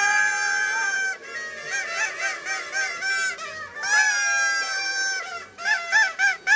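A party blower horn honking: a long blast, then a run of short toots, another long blast, and quick toots near the end.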